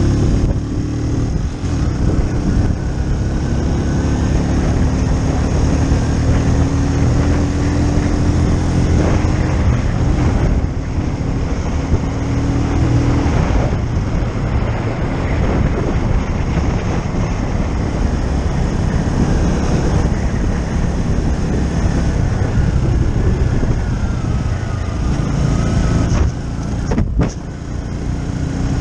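Keeway Superlight 125 motorcycle under way, its single-cylinder engine running steadily. The engine note climbs slowly through the first half as the bike gathers speed, over a steady rush of riding noise, and there is a brief drop and a click near the end.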